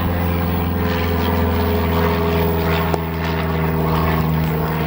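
A steady motor drone holding one unchanging pitch, with a single faint click about three seconds in.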